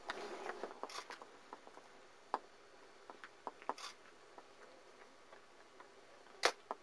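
Faint rustling and scattered small clicks and ticks of handling and movement, busiest in the first second, with one sharper click near the end.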